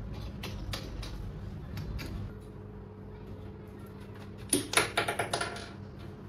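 Small metal parts of a microphone boom arm and its mount clicking and rattling as they are handled and fitted together. A few scattered clicks come first, then a quick run of metallic clicks and rattles about four and a half seconds in.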